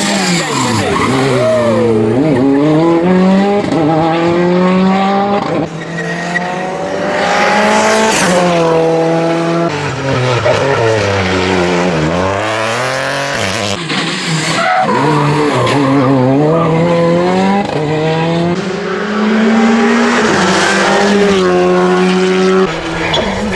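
Rally car engine at full throttle, its pitch climbing through a run of upshifts, then dropping steeply twice, about two seconds in and about twelve seconds in, as it brakes and downshifts before accelerating again. Tyre squeal and skidding run under the engine.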